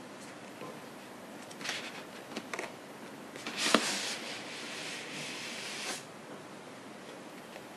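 Cardboard outer sleeve of a boxed action figure sliding off the inner box: a few short scrapes, then a longer sliding rasp with a sharp tap near its start, stopping about six seconds in.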